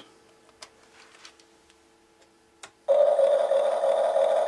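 A few faint clicks as the HuiNa 1550 toy RC excavator and its radio are switched on. About three seconds in, the excavator's built-in sound system starts abruptly with a loud, steady, rough electronic sound effect from its small speaker.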